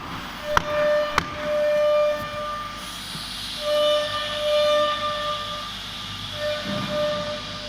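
CNC router with an air-cooled spindle running: a steady whine on one pitch that stops and starts again several times, with a few sharp clicks in the first second and a hiss rising from about the middle on.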